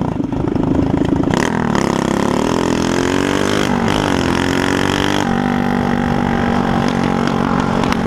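Small motorcycle engine running with a broken exhaust. Its pitch dips and rises in the first half, then holds steady from about five seconds in.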